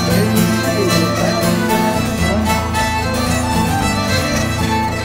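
Live contra dance tune on a Swedish nyckelharpa, a bowed keyed fiddle, backed by baritone guitar, with a steady beat.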